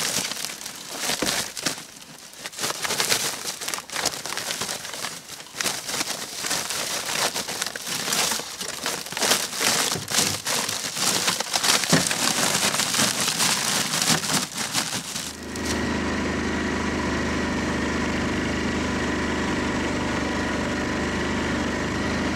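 Plastic bag crinkling and rustling as it is handled and packed into a plastic sled, with sharp clicks and knocks. About two-thirds of the way in it switches abruptly to an ATV engine running steadily.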